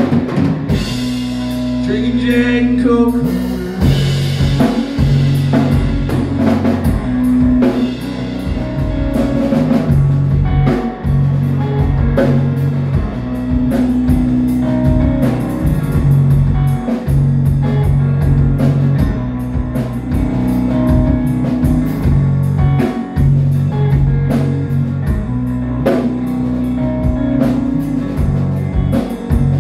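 Rock music with a drum kit, guitar and singing, a bass line shifting between a few held low notes under a steady beat.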